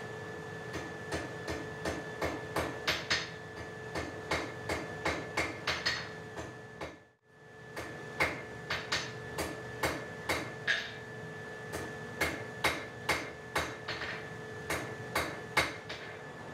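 Blacksmith's hammer striking a 6 mm round steel bar on the anvil in a quick run of ringing blows, about two to three a second, with a steady ringing tone underneath. The sound breaks off briefly about seven seconds in, then the blows resume.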